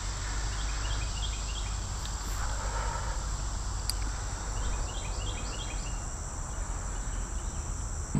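Insects droning steadily in a thin, high-pitched tone, with two spells of rapid, short chirps about half a second and about four and a half seconds in.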